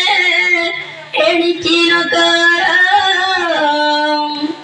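A high female voice singing a devotional song in long held, slightly wavering notes, in two phrases with a short break about a second in.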